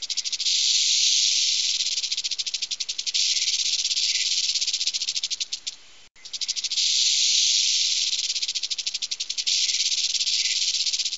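Rattlesnake rattling: a loud dry buzz that starts as quick even pulses and blurs into a steady hiss, stops briefly about six seconds in, then starts again the same way.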